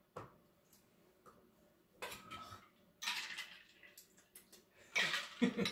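Glassware and metal barware clinking and knocking against each other and on a stone countertop, in scattered taps with a few louder clattering clusters, the loudest near the end.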